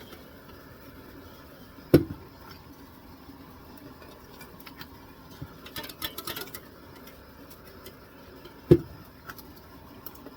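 Hard objects being handled: two sharp thumps about seven seconds apart, with light clinking and clattering between them.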